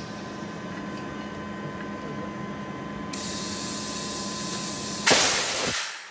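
Compressed air hissing from an air line, then about five seconds in a sudden loud blast of air lasting under a second as a bead-seater tank is fired into the gap between tyre and rim to seat the tyre's bead. A steady workshop hum runs underneath until the blast.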